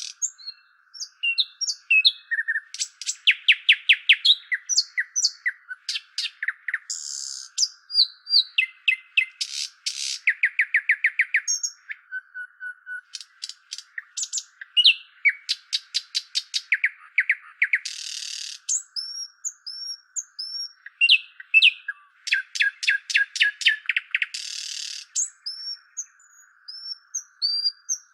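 Several wild birds singing and calling one after another: fast series of repeated chirps, trills and short whistled notes, over a steady faint hiss.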